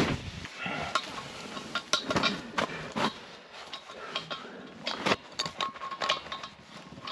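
Irregular metallic clinks and knocks of a propane hose's brass fitting being handled and screwed onto the valve of a propane cylinder, hooking up a portable propane heater.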